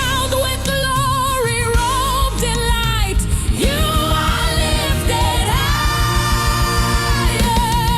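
African gospel praise music: voices singing wavering, drawn-out notes without clear words over bass and a steady beat. One long note is held about six seconds in.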